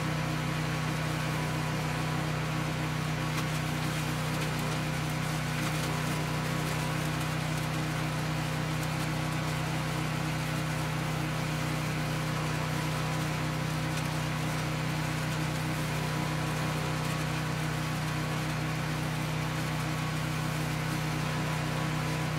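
Allis Chalmers 416 garden tractor's Kohler K341 single-cylinder engine running at a steady speed, driving the composter attachment as dry leaves are fed in and shredded. It is a continuous, even mechanical hum with no change in speed.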